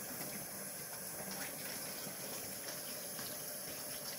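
Kitchen faucet running into a stainless steel sink while hands are rinsed under the stream: a steady, even rush of water.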